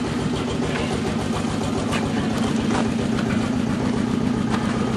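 A motor-driven machine running steadily: a constant hum over a fast, even low throb.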